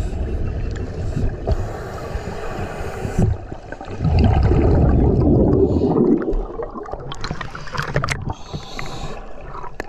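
Muffled underwater sound of a camera just below the surface of a spring: water sloshing and rumbling against the housing, swelling into a louder churning rush about four seconds in. Scattered clicks and crackles of bubbles follow near the end.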